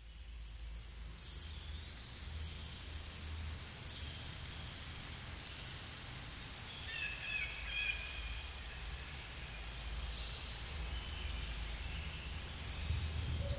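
Rural outdoor ambience fading in: a steady low rumble under a high, even hiss, with a few short bird chirps about seven seconds in.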